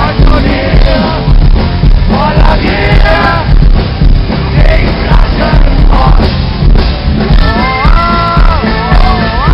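Live folk-metal band playing loud, with drums, bass and guitars under a male singer. About three-quarters of the way in, bagpipes and a shawm take over with a held, bending melody line.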